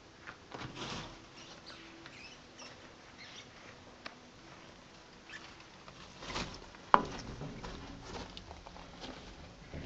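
Light rustling and scattered clicks as a mangrove monitor moves over bark-chip substrate, with one sharp knock about seven seconds in.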